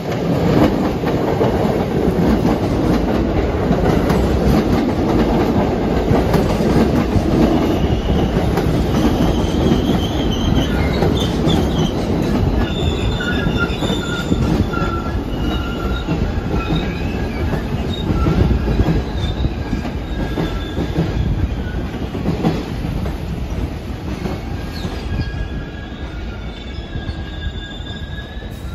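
New York City subway train running by, wheels rumbling on the rails, with high-pitched wheel squeal from about ten seconds in. The rumble eases off near the end.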